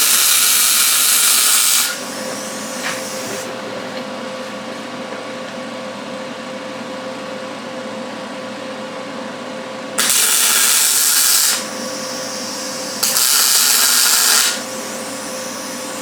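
Gas-shielded MIG welding a steel nut onto a table leg: the arc's steady sizzling hiss in three runs, the first stopping about two seconds in and two shorter ones of about a second and a half near the middle and later on. Between the welds there is a quieter steady hum.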